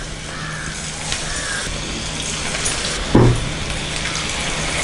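Ragi pakoda batter deep-frying in hot oil in a kadai: a steady sizzle that grows louder as more batter is dropped in. A short, louder low sound comes about three seconds in.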